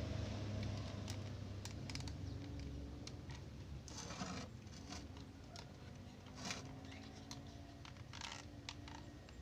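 Scattered light clicks and short scrapes, with a low hum fading out over the first few seconds.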